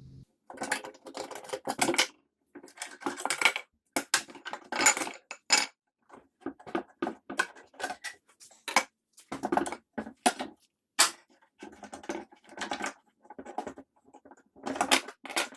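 Intermittent metallic clinking and clattering, many short sharp knocks in choppy stretches that cut off abruptly into silence.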